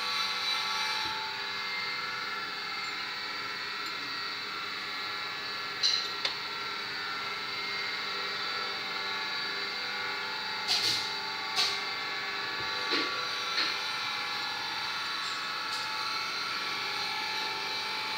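Steady hum of workshop machinery, with a few short metallic clicks and creaks in the middle as a collet clamp on a T-handle is twisted back and forth to work a broken, seized spark plug's core loose in a cylinder head.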